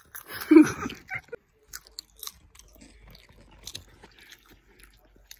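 Popcorn being chewed right at the microphone for ASMR: a loud crunch about half a second in, then a run of small crisp crackles and mouth clicks.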